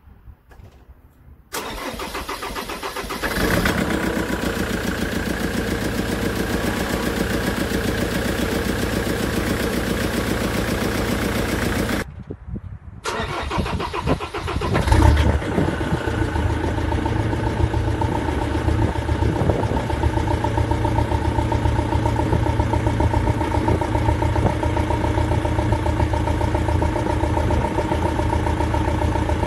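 Land Rover Defender's Puma 2.4 TDCi four-cylinder turbodiesel cranked on the starter, catching after about two seconds and settling into a steady idle: its first start since a rebuild, after the fuel system was bled. The start is heard twice, the second catching with a louder burst, and the idle carries a tapping from hydraulic tappets not yet full of oil.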